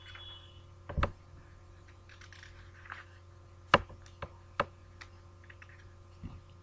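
A few scattered, short clicks and knocks, the loudest about a second in and near four seconds in, over a steady low hum.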